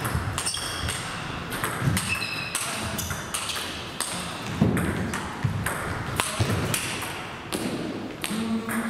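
A table tennis rally: the plastic ball clicks sharply off bats and table in quick, irregular succession. Short high squeaks of sports shoes on the court floor come in between.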